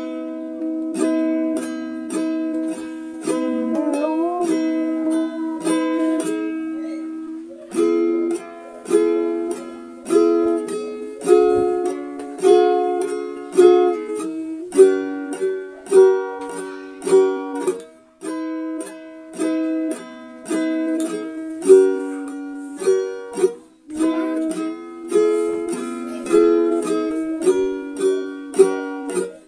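Background music: a light tune on plucked string instruments, notes struck sharply and dying away in a steady beat.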